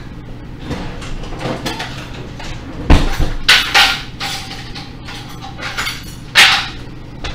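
Kitchen drawer or cupboard and utensils being handled while utensils are fetched: a thump about three seconds in, then scraping and clattering, with a louder clatter near the end.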